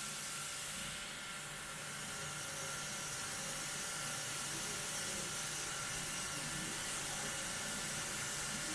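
CNC cutting machine running with a steady hiss and faint steady hum tones.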